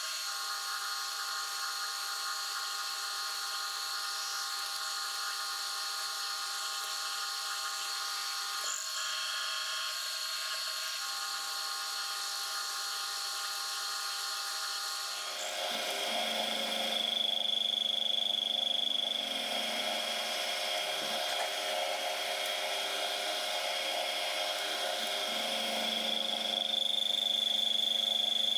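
Milling machine spindle running an end mill, giving a steady whine made of several constant tones. About halfway through, the cutter goes into the steel taper blank to mill the flats for its tang; the sound gets louder and a higher whine comes in.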